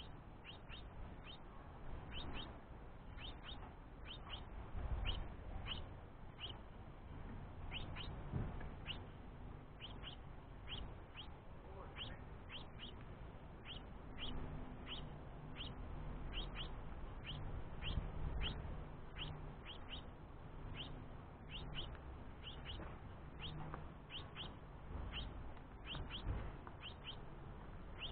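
House finch fledgling begging: a steady series of short, high, downward-sweeping chirps, about two to three a second, over a low rumble with a few soft thumps.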